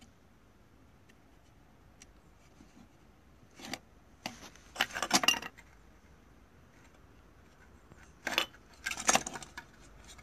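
Plastic smoke-detector parts clicking and clattering as they are handled, in two bursts about four and eight seconds in.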